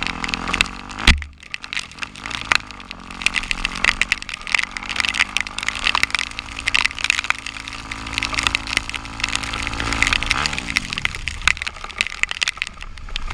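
Off-road vehicle engine running, its pitch dropping and picking up again a few times as the throttle changes, under a dense crackle of pouring rain hitting the camera. There is one loud knock about a second in.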